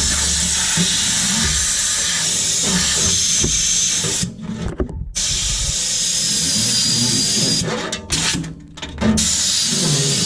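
Steady rushing hiss of air used to clean dirt out of a gas water heater's burner and air intake. It stops twice: about four seconds in for about a second, and again near eight to nine seconds in.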